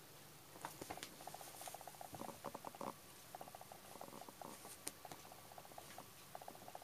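Short runs of fast, soft ticking scratches with a few sharp clicks, from a cat's paw and a person's fingers scuffling on a fabric seat.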